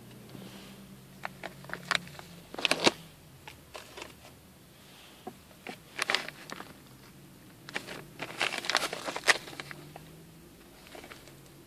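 Plastic packets of pellet fishing bait being handled and turned over, crinkling and rustling in short irregular spells, loudest about three seconds in and again around eight to nine seconds.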